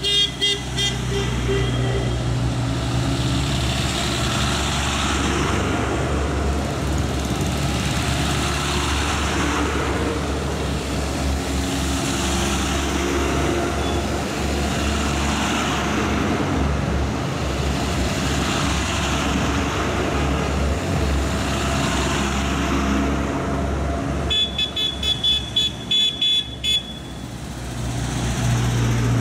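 A convoy of Renault army trucks driving past one after another, diesel engines running low and tyre noise swelling and fading as each truck goes by. A rapidly pulsing high warning tone sounds briefly at the start and again for a couple of seconds about 25 seconds in.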